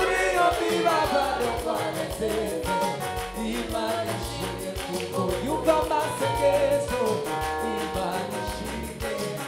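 Gospel worship music with a steady beat: band or keyboard accompaniment with a voice singing a melody over it.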